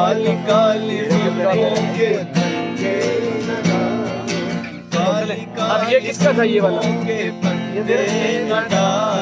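Acoustic guitar strummed steadily while men sing a song together.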